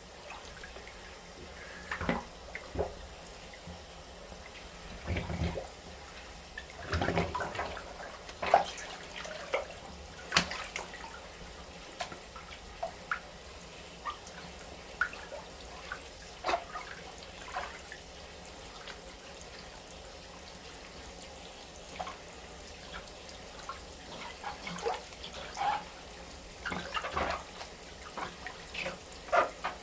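Wet Fila Disruptor II Wedge sneakers squeaking and squelching on a shower floor in irregular short bursts, over a steady low hiss of water.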